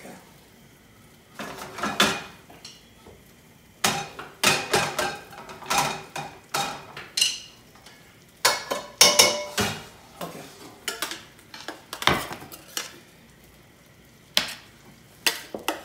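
Metal spoon clanking and scraping against a stainless steel sauté pan as gnocchi in tomato sauce are stirred and scooped out. It comes in irregular bursts of clatter, some sharp strikes among them.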